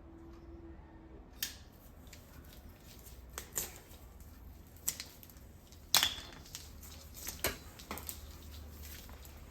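Scattered sharp clicks and clinks of hand tools and small metal parts being handled while an electric motor is taken apart, about eight in all, the loudest about six seconds in, over a faint low hum.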